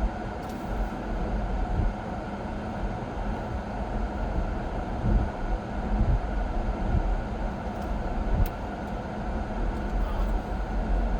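Steady road and engine noise inside a moving car's cabin, with the air conditioning blowing.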